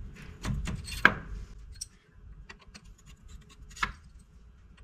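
Sharp clicks, taps and short scrapes as small metal engine parts are handled and tried in place, busiest in the first second and a half with a louder click about a second in.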